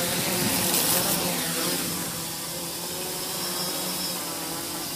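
FPV quadcopter's electric motors and propellers buzzing as it takes off and flies, with the pitch wavering as the throttle changes. It is loudest in the first second or two, then a little quieter.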